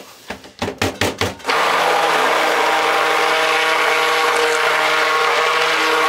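A few sharp knocks, then a stick blender starts about a second and a half in and runs steadily, blending colorant into a cup of cold process soap batter.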